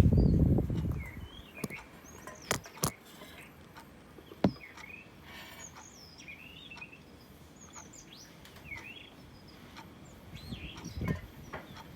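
A songbird singing short phrases of quick rising and falling notes, which the recordist takes for a blue rock thrush. A low rumble of handling noise fills the first second and comes back near the end, and a few sharp clicks fall in the first half.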